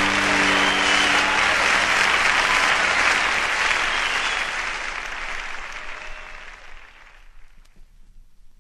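Arena crowd cheering and applauding, fading out over the last few seconds.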